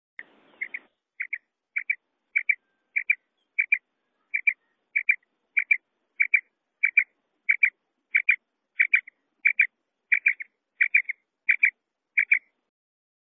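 Female quail calling a steady series of short paired notes, about one pair every two-thirds of a second, some twenty pairs in a row, stopping shortly before the end.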